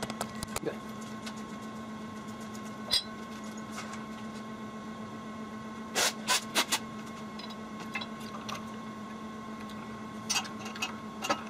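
Sharp metallic clinks of small steel gears and a shaft being set down and shifted on a shop press's steel plate: once about three seconds in, a quick cluster around six seconds in, and more near the end, over a steady low hum.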